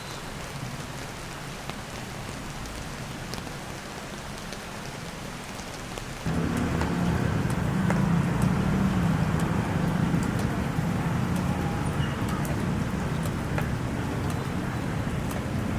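Steady rain falling, with scattered ticks of drops. About six seconds in it jumps abruptly to a louder, heavier downpour with a low rumble underneath.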